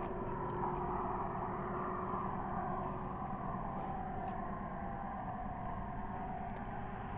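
Road traffic noise: a steady rush of passing vehicles whose pitch slowly sinks over several seconds as a vehicle goes by.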